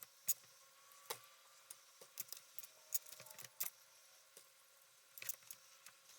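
Screws being tightened into a 4TB Seagate Barracuda hard drive by hand with a screwdriver: a scattering of light, irregular metallic clicks and ticks.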